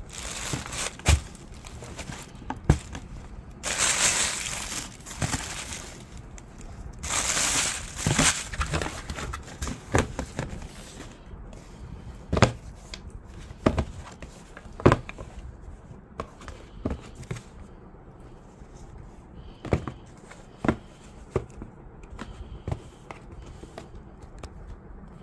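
Handling of canvas high-top sneakers and their cardboard shoe box: paper or cardboard crinkling in two spells of a second or two each, about four and seven seconds in, with scattered sharp taps and knocks throughout.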